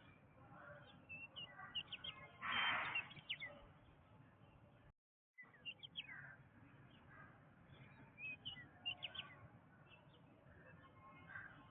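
Faint jungle ambience with many birds chirping and whistling in short calls. A louder, harsher call comes about two and a half seconds in, and the sound cuts out completely for a moment around five seconds in.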